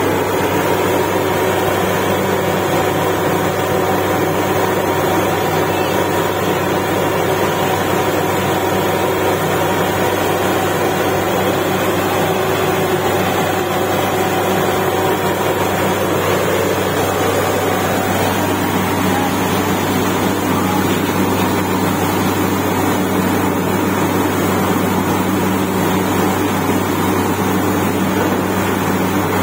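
Truck-mounted borewell drilling rig running steadily while drilling, its engine and compressor noise continuous and loud, with the drilling blowing water and rock cuttings out of the hole. Its tone shifts slightly about seventeen seconds in.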